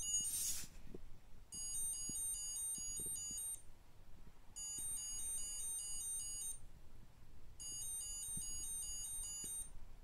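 LEGO 9V electric sound siren brick (4774c01) sounding its electronic police siren: three bursts of about two seconds, each a quick run of alternating high beeps, with about a second of gap between them. A short hiss comes about half a second in, before the first burst.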